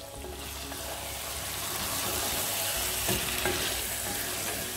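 Chicken chukka masala sizzling steadily in a granite-coated pan as a spatula stirs through it, the hiss growing a little louder over the first two seconds, with a few faint ticks. The gravy is nearly cooked off and the dish is almost dry.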